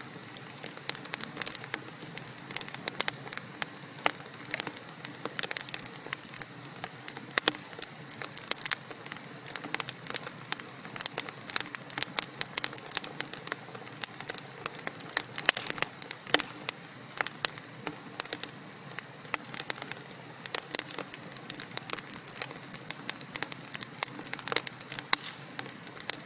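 Wood fire burning in a fireplace: an even hiss with frequent irregular sharp crackles and pops from the burning logs.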